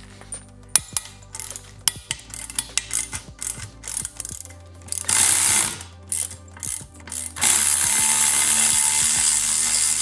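Ratchet backing out the bolts of a motorcycle handlebar riser clamp: a run of irregular sharp clicks for several seconds, then a steady, louder whir from about seven seconds in.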